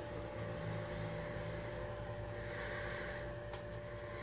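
Steady low hum of a running kitchen appliance, with one faint constant tone over it, and a faint soft rustle about three seconds in.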